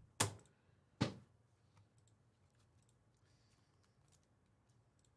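Two sharp clicks about a second apart near the start, followed by faint, scattered light clicks.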